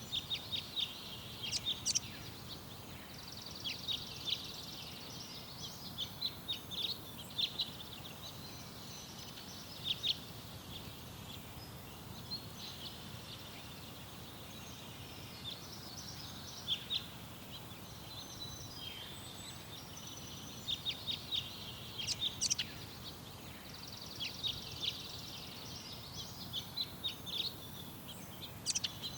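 Small garden birds chirping in clusters of quick high calls that come and go every few seconds, over a steady low background rumble.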